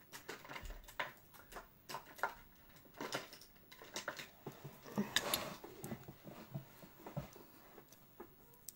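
Makeup products clicking and knocking against each other as someone rummages through a makeup train case: irregular small clatters and taps.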